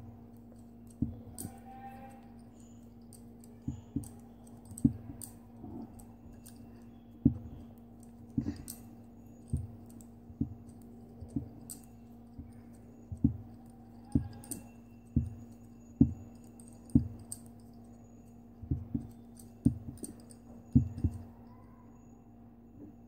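Metal knitting needles clicking against each other as stitches are worked, in irregular single and double clicks about once a second, over a steady low hum.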